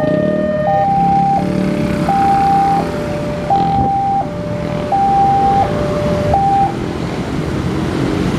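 Railway level-crossing alarm sounding a two-tone electronic signal, alternating a higher and a lower tone every second or less, then cutting off about two-thirds of the way through as the crossing reopens. Motorcycle and car engines run underneath as the waiting traffic moves off across the tracks.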